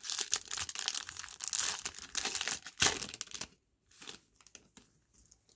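A Topps baseball card pack's wrapper being torn open and crinkled in the hands: a dense crackle for about three and a half seconds, then only a few faint rustles.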